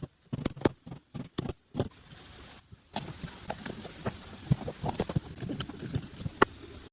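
Irregular sharp clicks and knocks from hand work on an electric pump motor, a quick run of taps with short gaps, then denser knocking over a low steady background noise.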